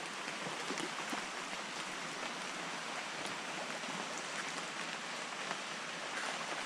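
Steady, even noise of water, with no breaks or separate strikes.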